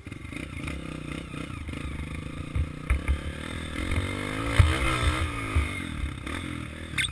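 Single-cylinder off-road engine running under way. Its pitch dips and rises again about halfway through, and low thuds and rattles from riding over rough ground sound beneath it.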